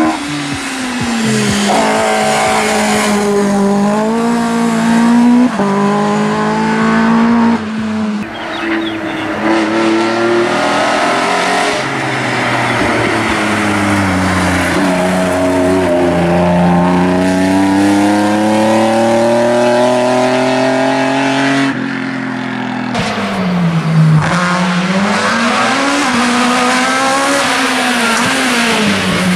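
Hillclimb race car engines at full throttle, one car after another, first an Opel Kadett: each engine's pitch climbs hard, breaks off at every quick upshift and dips as the car lifts for a bend, then climbs again.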